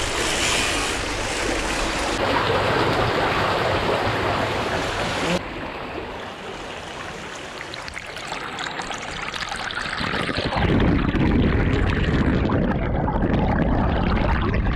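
Bicycle tyres rushing and splashing through puddles on a wet road, a steady watery hiss. It drops off suddenly about five seconds in and grows heavier again with a low rumble from about ten seconds in.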